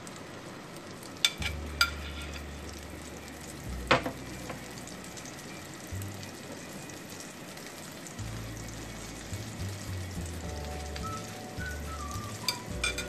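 Beaten egg mixture frying in hot oil on a flat tawa griddle with a steady sizzle, and a few sharp taps of a metal spoon against the pan, the loudest about four seconds in.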